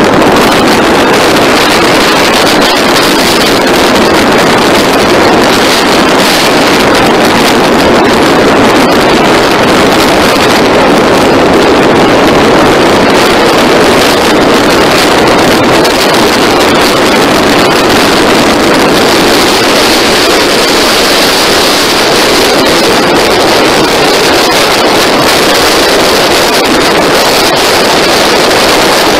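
Motorcycle ridden at road speed: a loud, steady rush of wind on the microphone mixed with the noise of the running engine.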